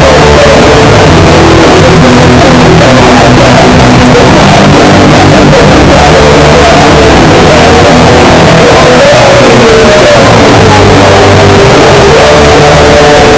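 Street-punk band playing a loud, continuous guitar-driven instrumental passage with no singing.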